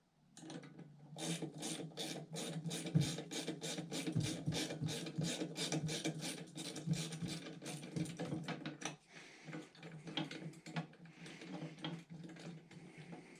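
Ratcheting wrench driving a 10 mm bolt into a threaded rack bracket. Its pawl clicks in an even run of about four clicks a second, giving way to softer scraping and rubbing near the end.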